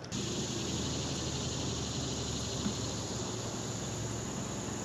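Steady high-pitched insect chorus, with a faint low hum underneath.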